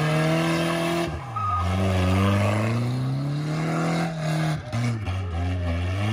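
A car's engine revving hard while it spins donuts, tyres squealing on the pavement. The engine note climbs, drops sharply about a second in, climbs again for several seconds, then falls and picks back up near the end.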